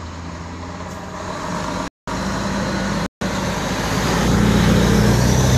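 Fire truck's engine running as it drives slowly past close by, getting louder over the last couple of seconds. The sound cuts out completely twice for a split second near the middle.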